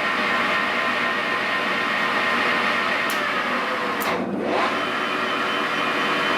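Victor 1640 engine lathe running: a steady motor and drive hum with several held tones. There are two faint clicks about three and four seconds in, then a brief dip, after which the hum carries on with a slightly changed set of tones.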